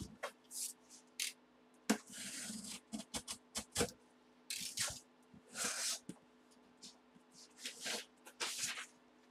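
Utility knife slicing through the packing tape on a cardboard box, with short scrapes, rustles and clicks as the cardboard flaps are worked open and a paper sheet is pulled out.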